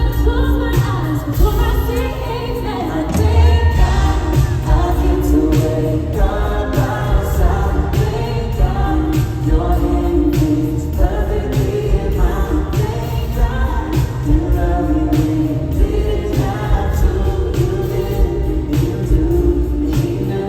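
A live band playing a country-pop song at a sound check, with singing over a steady drum beat of about two hits a second and a heavy bass line.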